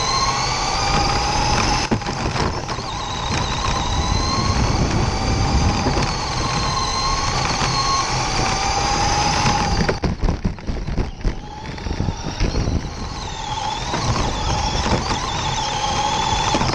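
RC dirt oval race car's motor and gears heard on board, whining and rising and falling in pitch with the throttle over a steady rumble from the dirt track. About ten seconds in the whine drops away for a couple of seconds of rattling knocks, then picks up again.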